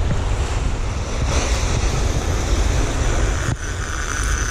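Surf and wind rumbling on the microphone while a conventional fishing reel is cast: line pays off the spool in a whirring hiss. A sharp click comes near the end, followed by a steadier, higher whir.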